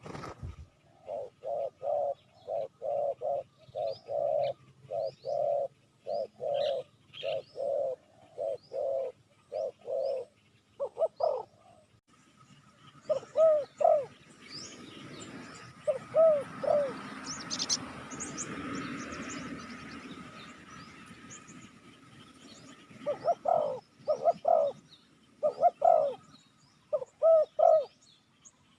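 Spotted dove cooing in repeated short phrases of two and three notes, used as a lure call for wild doves, with small birds chirping faintly behind. Midway a rushing noise swells and fades while the cooing thins out, then the cooing picks up again near the end.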